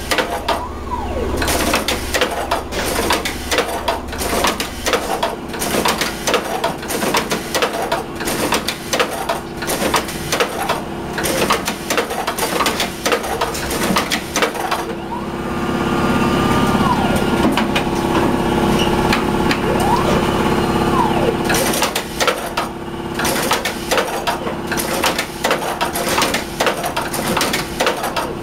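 Multi-blade frozen fish cutting machine running, a rapid clatter of blades and mechanism as it chops a frozen fish. Midway it goes steadier and louder for several seconds, with a whine that rises and falls.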